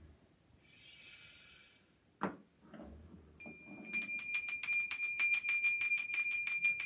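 Jingle bells shaken in a quick, steady rhythm, several shakes a second, starting about three and a half seconds in, announcing the arrival of St Nicholas. Before them, a faint breathy hiss and a single click.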